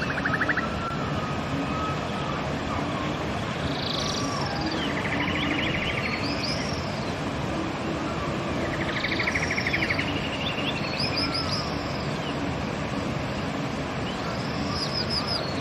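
Steady rushing of a river with songbirds singing over it: short arched whistled phrases and fast buzzy trills, repeating every few seconds.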